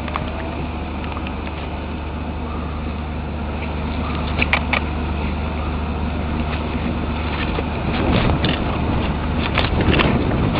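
A steady low engine-like hum under wind buffeting the microphone, the buffeting growing stronger in the last few seconds, with a few sharp clicks.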